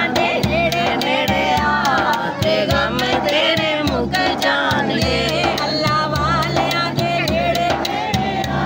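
A woman singing a devotional naat in a wavering, melismatic line, with a hand-struck frame drum (daf) beating a quick, steady rhythm under her voice.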